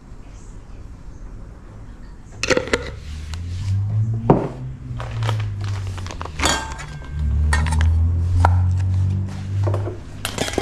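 Kitchen dishes and utensils clinking and knocking, in about half a dozen separate knocks and clinks starting a couple of seconds in. A low rumble runs under them twice in the middle.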